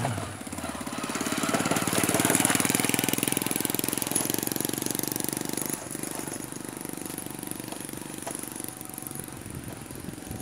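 Small motorcycle engine running with a rapid, even putter as a motorbike pulling a cargo cart passes close by. It is loudest two to three seconds in and drops off suddenly about six seconds in.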